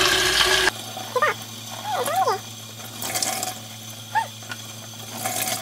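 Tap water running onto a sponge in a stainless steel sink, cut off abruptly less than a second in. Then several short, wavering high whines over a faint low hum, the longest a wobbling rise-and-fall about two seconds in.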